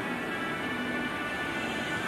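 Music with long held tones, many pitches sounding together.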